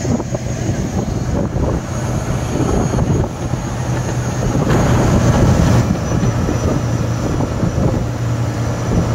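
Tow boat's engine running steadily at speed under a rush of wind and water, with a brief louder rush of noise about five seconds in.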